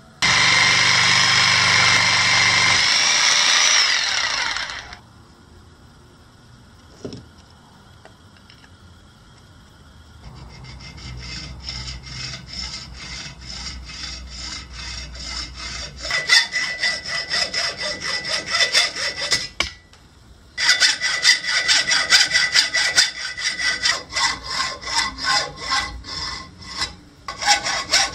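Hand hacksaw cutting a piece of small tree trunk clamped in a bench vise, in steady back-and-forth strokes. The strokes start softly about ten seconds in, grow louder, and stop briefly around twenty seconds in. Before that, a loud steady whirring noise runs for the first four seconds or so.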